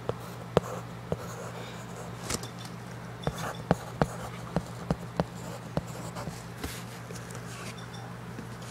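Handling noise: a dozen or so sharp, irregularly spaced taps and clicks, most of them in the middle of the stretch, over a steady low electrical hum.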